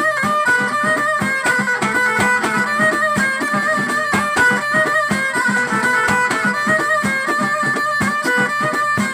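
Live Moroccan folk music: a melody on a bowed string instrument over hand-held frame drums and a drum kit beating a fast, steady rhythm.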